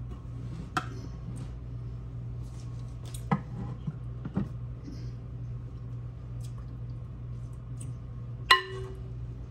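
Metal spoon and cookware clinking in a kitchen: a few scattered clicks and knocks, then one loud ringing clink near the end, over a steady low hum.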